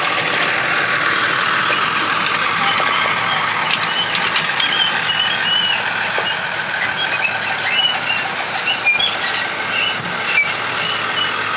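John Deere tractor's diesel engine running steadily as it pulls a loaded silage trailer across the field, over the steady running of a forage harvester. Many short high-pitched squeaks come in from about four seconds on.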